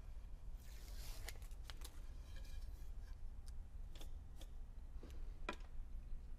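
Wooden workpieces being handled on an MDF work surface: a brief scrape of wood sliding about a second in, then several light knocks and taps as a board is set down and positioned, over a low steady hum.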